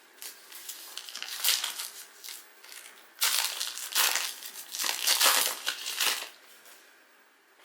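Foil wrapper of a Donruss Optic basketball card pack crinkling and crumpling as it is torn open, in a run of crackly bursts that grow louder about three seconds in and stop near the end.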